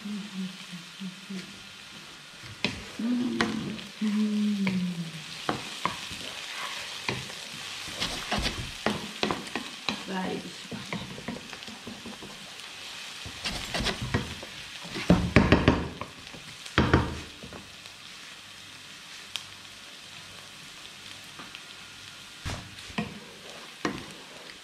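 Chopped red onion sizzling in olive oil in a frying pan, stirred with a wooden spatula: a steady frying hiss under repeated knocks and scrapes of the spatula on the pan, with a loud cluster of knocks about fifteen seconds in.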